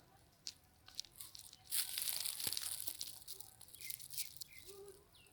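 Crinkling, rustling noise with scattered clicks, loudest around the middle, followed near the end by a few short, high, falling squeaks.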